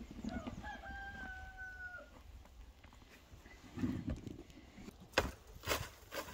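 Rooster crowing once: a single held call of about a second and a half, starting just after the clip begins. Two sharp knocks follow near the end.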